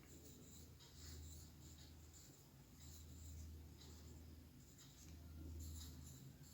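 Faint pen scratching on paper in short irregular strokes, over a low hum that swells and fades.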